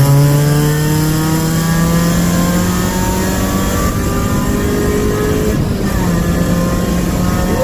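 1996 Honda Prelude Si's H23A1 2.2-litre four-cylinder engine pulling hard under full acceleration from about 50 mph, its note rising steadily in pitch. There is a brief break about five and a half seconds in.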